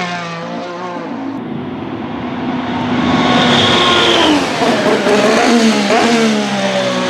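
Alpine A523 Formula One car's 1.6-litre V6 turbo-hybrid engine on track. The engine note falls, rises again about three seconds in, then falls away once more as the car goes through its gears.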